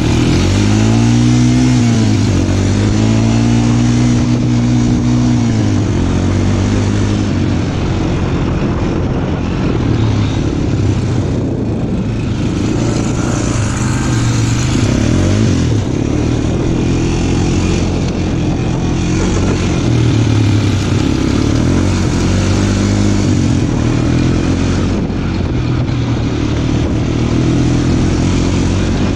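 Small off-road vehicle engine running under way, its pitch rising and falling as the throttle is worked, with rushing wind noise over it.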